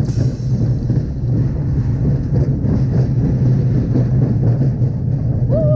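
Small roller coaster car rolling along its steel track, a steady loud rumble with rattling, heard from on board in the front seat.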